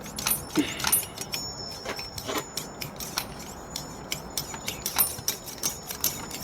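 A knife cutting into the hard plastic frame of a socket set, making an irregular string of sharp clicks and scrapes, with the steel sockets clinking and ringing briefly.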